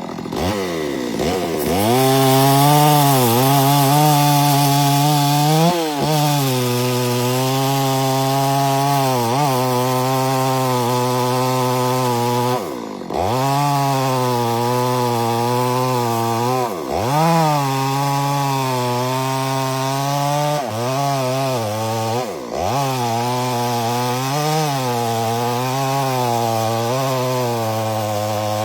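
Chainsaw running at high revs through wood, its pitch wavering under the load of the cut. Several times the revs drop sharply and climb straight back as the throttle is eased off and squeezed again.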